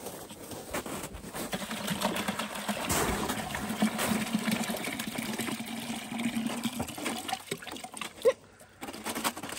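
Birch sap pouring from a plastic jug into a plastic bucket, a steady splashing that tapers off near the end.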